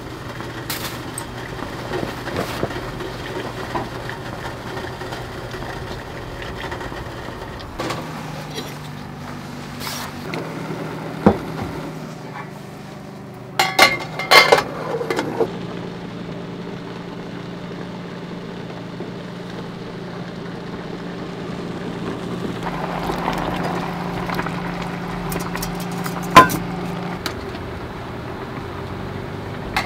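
Steady electric hum that steps up in pitch about eight seconds in and again a couple of seconds later, with sharp clinks of cooking utensils: one just past ten seconds, a cluster around the middle, and a loud one near the end.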